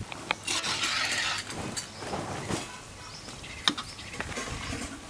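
Bajji batter being mixed by hand in a steel bowl: wet stirring with several sharp clinks against the metal, the loudest a little before four seconds in.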